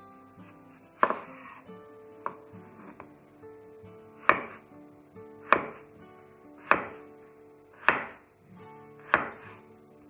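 Kitchen knife slicing through a peeled raw potato on a wooden cutting board. Each cut ends in a sharp knock of the blade on the board, in a regular series about once every second and a quarter.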